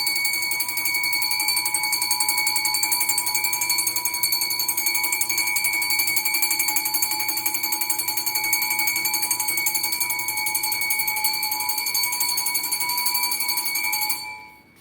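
Electric bell ringing continuously, its hammer rattling rapidly on the gong, then stopping suddenly near the end.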